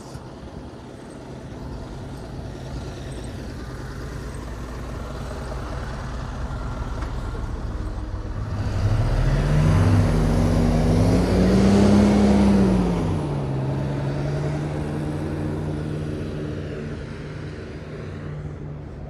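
A vehicle approaching and passing, its motor hum rising in pitch and then falling. It is loudest between about ten and thirteen seconds in, then fades away.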